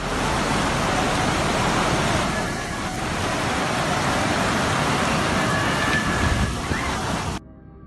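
Steady noisy roar of storm wind and rain, cutting off suddenly near the end.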